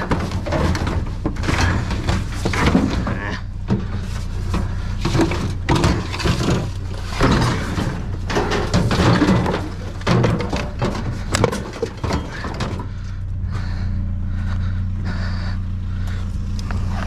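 Repeated clanks, rattles and thunks of scrap items being handled and tossed, dense for the first twelve seconds or so, over a steady low hum that continues on its own near the end.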